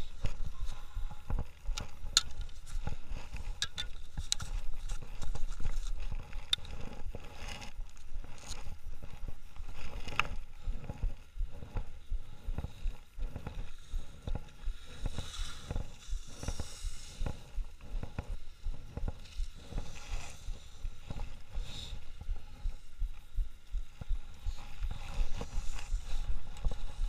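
Skis hissing and scraping over packed snow through a run of turns, with short scrapes and clicks and surges of hiss. Wind rumbles low on the microphone throughout.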